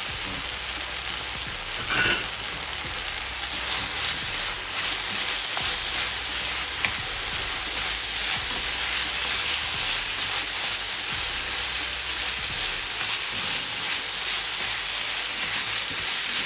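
Minced beef, vegetables and prawns sizzling steadily in a frying pan, with a wooden spoon stirring and scraping through them. A brief knock about two seconds in.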